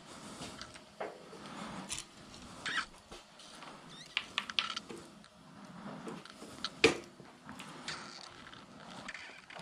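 Handling noise from a fishing rod being worked by hand: scattered light clicks, taps and rustles, with one sharp knock about seven seconds in.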